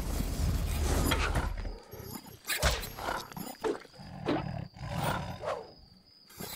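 A cartoon polar bear's non-verbal voice: a low rumble that stops about two seconds in, then a string of about six short grunts and growls, half a second or so apart.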